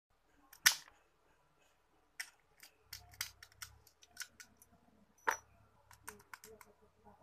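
Sharp clicks and clinks of a small glass bottle and metal keys being handled against each other and the concrete floor: a loud click about half a second in, another about five seconds in, and a dozen lighter ticks between them.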